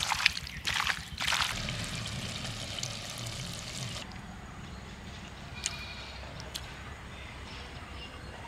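Wet squelching of a hand mixing poultry stomach pieces in spice paste in a steel bowl, loudest in a few bursts in the first second and a half, then a softer wet rustle. After about four seconds it drops to a quieter background with a couple of faint clicks.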